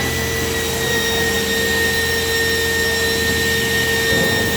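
Computer beam saw running with a steady, even whine of spinning machinery over a low hum.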